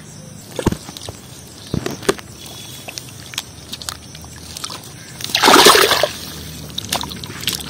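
A large catfish thrashing in a small mud hole full of water. A few short slaps come in the first couple of seconds, then one loud splash about five seconds in as it heaves itself out.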